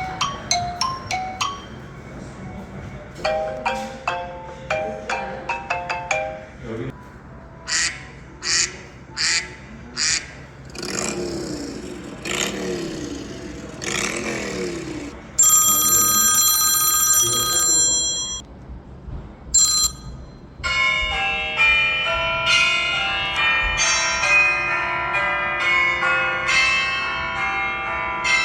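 iPhone 14 Pro Max ringtones played one after another through the phone's speaker, each cut off after a few seconds as the next begins. They run from short plucked chimes and quick clicking rhythms to sweeping tones, a steady bright ringing tone about halfway through, and a busy melody near the end.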